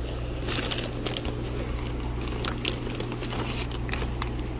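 Plastic fish shipping bags crinkling and rustling as they are handled in a cardboard shipping box, with many irregular short crackles. A steady low hum runs underneath.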